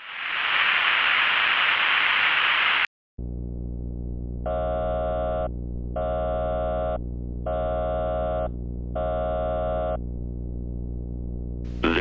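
Television static hiss for about three seconds, cut off with a click. Then a low electronic buzzing drone, over which four synthesized alert beeps of about a second each sound at even intervals, the warning tone of a mock emergency alert broadcast.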